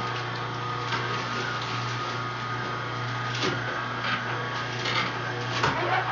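Electric juicer's motor running with a steady low hum, with a few short knocks as leafy greens are pushed into it.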